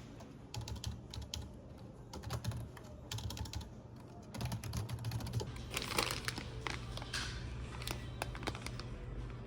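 Runs of quick, light clicks and taps coming in short bursts, over a low steady hum.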